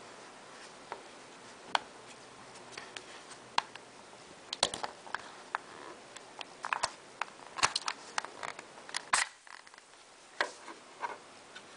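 Irregular clicks and taps of a plastic hand-squeeze dynamo flashlight being handled and turned over in the hands, with a run of sharper clicks through the middle.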